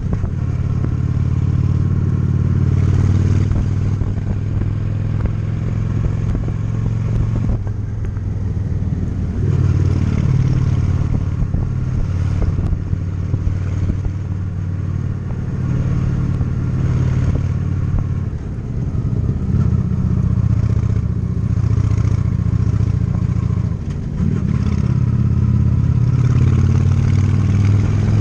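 Honda Shadow 750's V-twin engine running under way, its low exhaust note easing off and picking up again a few times with the throttle.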